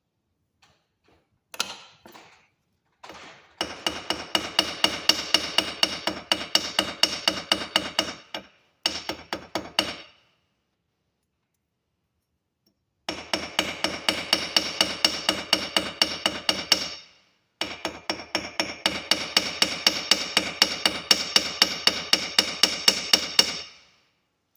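A hammer striking copper wire with a metallic ring, about four blows a second in several long runs with short pauses between: flattening the wire for a pendant.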